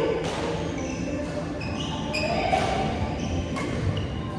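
Basketball game in a gym: a ball bouncing on a hard floor, with short high squeaks in between, heard in a large echoing hall.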